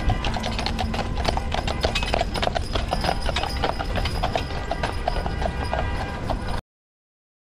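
A pair of horses pulling a hearse carriage, their hooves clip-clopping on a paved street in many quick, overlapping strikes over a steady low rumble. The sound cuts off suddenly near the end.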